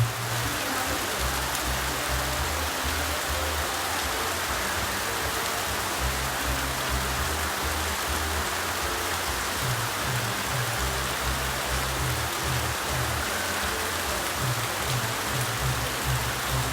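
Heavy monsoon rain falling steadily, a dense even hiss of downpour, with background music carrying a low bass line underneath.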